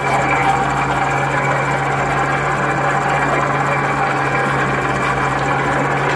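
Steady drone of a crab boat's engine and hydraulic line hauler running while line is hauled in over the sheave, holding one even pitch.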